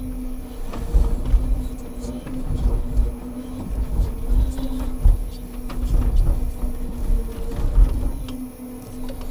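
Scania timber truck's engine running steadily to power the loading crane's hydraulics, a constant hum, with irregular heavy thuds and knocks from pine pulpwood logs being handled.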